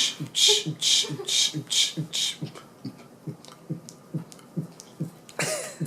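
A steady percussive beat of low thumps, a little over two a second, with a hissing hi-hat-like sound between them; the hiss drops out a little over two seconds in, leaving the thumps and faint clicks.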